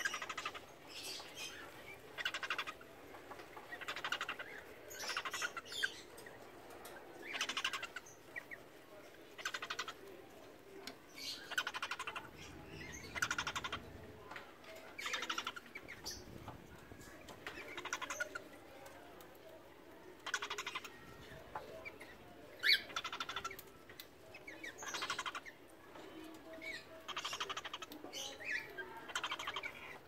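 Cockatiels mating, giving short bursts of chirping calls repeated every second or two.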